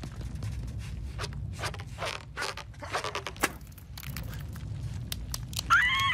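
Cartoon sound effects: a low rumble with irregular creaks and crackling clicks as a huge boulder presses down. Near the end comes a short squawking cry from the cartoon bird.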